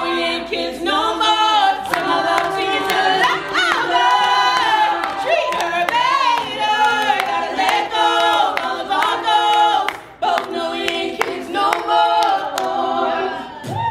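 Eight-voice a cappella group singing a pop-song mashup, a lead voice over backing harmonies, with a brief break about ten seconds in.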